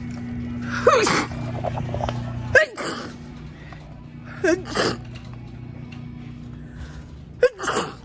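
A woman sneezing about five times in a row, each a short, loud sneeze with a brief voiced onset.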